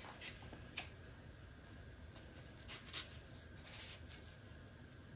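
Faint rustles and light clicks from green plantains being handled: a few single sharp sounds in the first second, then a denser cluster around three to four seconds in.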